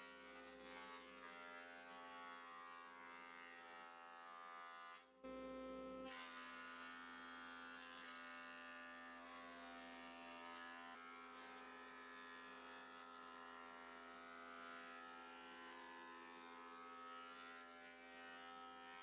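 Faint, steady electric hum of a jointer's motor running, with a brief break about five seconds in.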